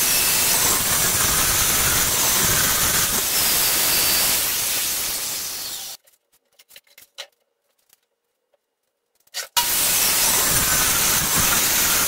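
Benchtop table saw running and ripping a sheet of plywood, a loud, even, hissing whir. It cuts off abruptly about six seconds in, leaving a few faint clicks, and comes back just as abruptly about three and a half seconds later.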